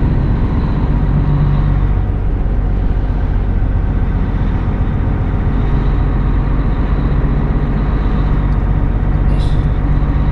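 Truck diesel engine running steadily at low speed, heard from inside the cab of a Hino tractor unit, with road noise.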